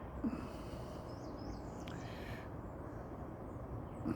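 Outdoor ambience: a steady low background rumble with a few faint, high bird chirps in the first second, a single click, and a brief hiss about two seconds in.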